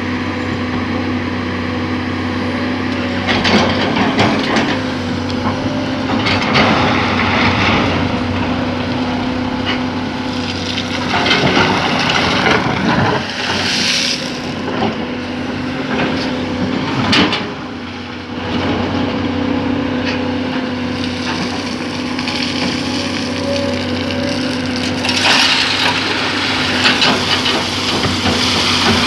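Excavator's diesel engine running steadily, with harsh, noisy surges every few seconds as the machine works.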